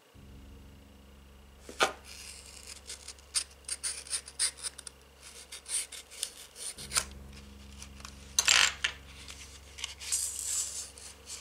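Cardboard packaging of a metal model kit being handled, slit with a hobby knife and pulled open: rustling scrapes and sharp clicks, loudest about two seconds in and again past the middle. Soft background music plays underneath.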